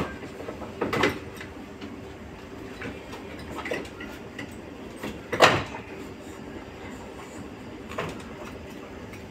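Plastic chassis of an LG split-type air conditioner's indoor unit knocking and scraping against its wall mounting as it is pushed and hooked into place: a few separate clunks and scrapes, the loudest about five and a half seconds in, over a faint steady hum.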